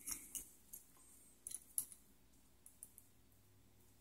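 A few faint, short clicks and taps as a gloved hand handles an H9 halogen headlight bulb and fits its plastic base into the plug connector, most of them in the first two seconds.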